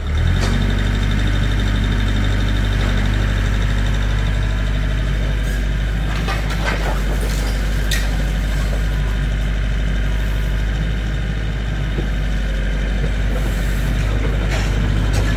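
An engine idling steadily, with a few brief knocks or clatters over it.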